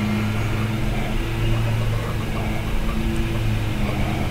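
A steady low mechanical hum from a running motor or engine, swelling a little now and then.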